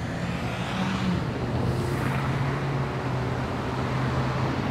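Road traffic: a steady low engine hum with a vehicle going past about two seconds in.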